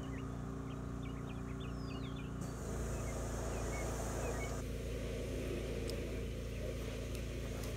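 Steady low hum of a running engine, with a rougher rushing noise joining about two and a half seconds in. A few faint short high chirps come in the first two seconds.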